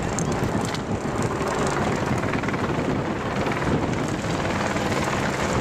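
Motor vehicles running past with wind on the microphone, a dense steady noise with no sharp events.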